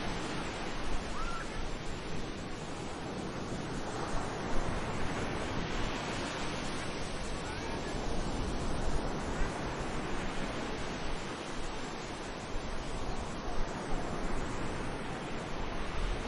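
Sea waves washing onto a beach, a steady hiss that swells and eases every few seconds, with low wind buffeting the microphone.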